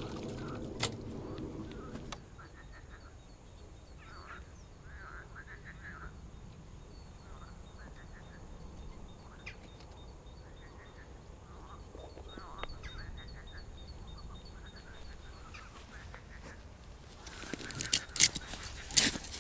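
Waterfowl calling over and over in short calls, with a fast row of faint high chirps through the middle. A low droning hum at the start stops about two seconds in, and a few loud sharp clicks or knocks come near the end.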